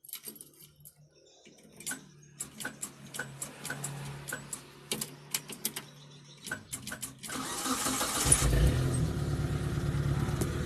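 Suzuki T120SS engine being started: a series of clicks over a low steady hum, then the starter cranks about seven seconds in and the engine catches and settles into a steady idle. The no-start fault has been cured by replacing a blown fuse.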